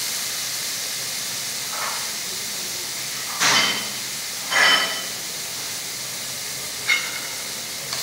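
Meat and vegetable stew simmering and sizzling in a frying pan over a gas burner, a steady hiss as it is left to cook. A few short louder sounds break in, the loudest about three and a half and four and a half seconds in.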